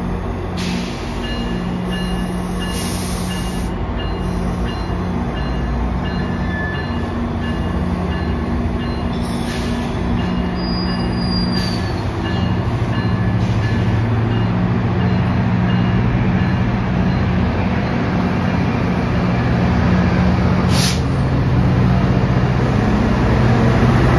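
GO Transit bilevel passenger coaches rolling past on the platform track, a steady rumble of wheels on rail, with the MP40PH diesel locomotive at the rear drawing near so that its engine hum grows louder toward the end.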